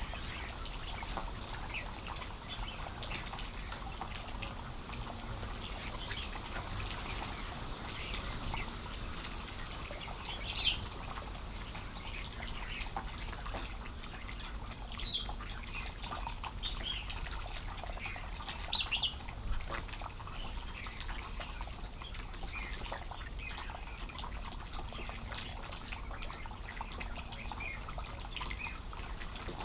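Wild songbirds giving scattered short chirps and calls from the surrounding bush, the loudest about 11 and 19 seconds in, over a faint steady trickle of water.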